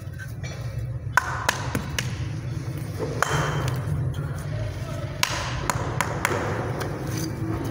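Hammer tapping bricks down into wet mortar to seat them: several sharp, irregularly spaced knocks on brick over a steady low hum.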